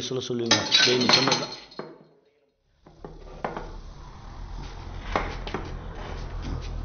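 Metal dishes and tumblers clinking and knocking on a table, a scatter of sharp clinks starting about three seconds in, over a low steady hum.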